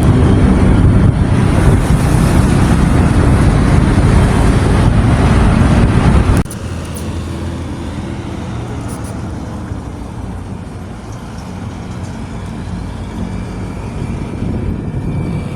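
Loud road and wind noise from a moving vehicle. About six seconds in it cuts off abruptly to a quieter, steady engine and traffic hum.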